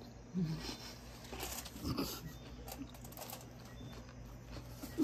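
Close-up eating sounds: chewing, with soft wet smacks and clicks, a short low hum about half a second in and a louder smack about two seconds in.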